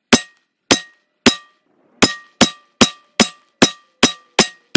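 A semi-automatic gun fires eleven shots. Three come about half a second apart, then after a short pause eight more follow at a steady pace, about two and a half a second. Each shot is followed by a brief ringing tone.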